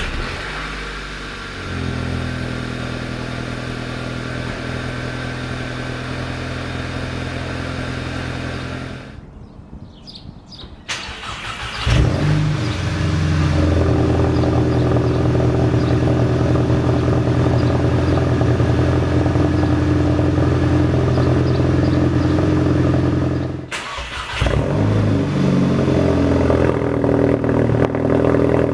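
Volkswagen MK6 GTI's turbocharged 2.0-litre four-cylinder heard through its exhaust in three separate runs. The first starts at the beginning and settles to a steady idle. The second starts about 12 s in and runs louder at a higher idle. The third starts about 24 s in.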